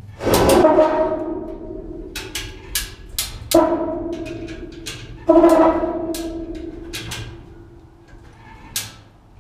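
Heavy clanks of the mast foot shifting in its steel collar and step as a winch starts lifting the mast. Three loud strikes, each followed by long metallic ringing from the steel hull, with lighter knocks between them.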